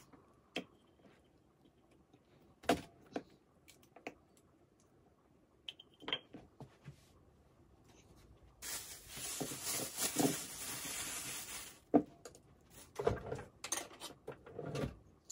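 Knocks and taps of a small metal vegetable cutter and carrot pieces on a wooden cutting board, then about three seconds of plastic bag crinkling. A sharp knock follows, the loudest sound, and a few more knocks near the end as a carrot is laid on the board.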